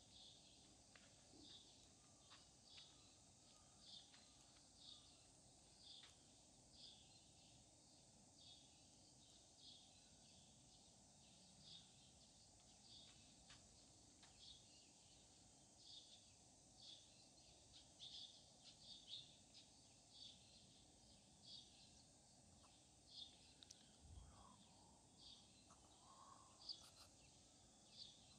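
Near silence with a steady hiss, over which faint short high chirps repeat about once a second. A soft low thump comes late on.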